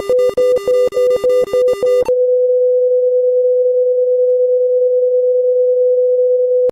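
Electronic tone signal: a two-note electronic buzz pulsing about five times a second, then about two seconds in a single steady beep-like tone, held until it cuts off suddenly near the end.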